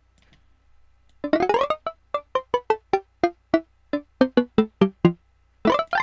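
ZynAddSubFX PADsynth patch, a saw wave with added harmonics and a plucky filter envelope shaped toward a bell-like percussive tone, played on the keyboard. A quick rising run comes about a second in, then about a dozen short notes at three or four a second that fall in pitch overall, each dying away fast.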